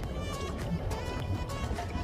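Background music with held notes and regular percussive hits, over a low rumble.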